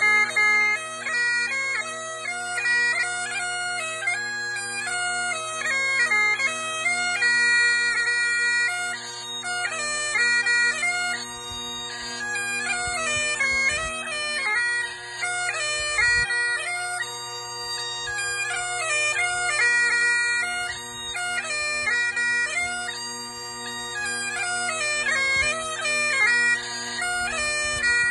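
Great Highland bagpipe played solo: a steady drone chord sounds under a continuous melody on the chanter.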